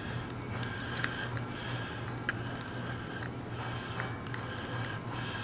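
Small screwdriver turning the reservoir cover screws on a motorcycle front brake master cylinder, run in finger tight, giving scattered light clicks and ticks over a steady low hum.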